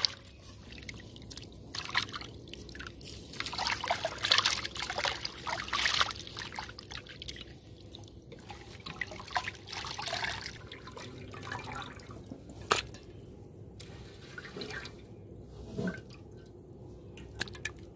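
Water splashing and dripping in a metal basin as raw chicken pieces are washed by hand, lifted and squeezed so the water runs back off them. The splashing comes in uneven bursts for about ten seconds, then grows quieter, with a single sharp knock about thirteen seconds in.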